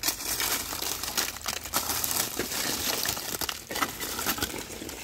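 Lumps of wood charcoal being handled and broken: irregular dry crunching and crackling with light clinks.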